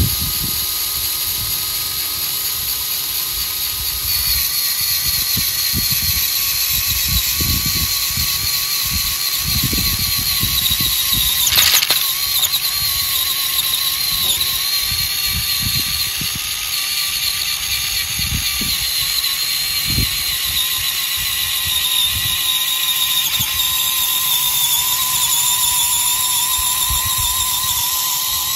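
Small electric motors and gearboxes of a radio-controlled model crawler tractor and its rotary super seeder whining as the seeder tills wet soil. The whine steps up in pitch about four seconds in, and there is one sharp knock near the middle. Irregular low rumbles run underneath.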